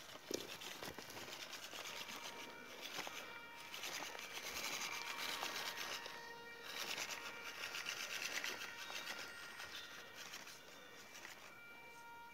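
Small radio-controlled rock crawler's electric motor and gearbox whining in thin steady tones that stop, start and shift in pitch as the truck crawls over rock, with a sharp click about half a second in.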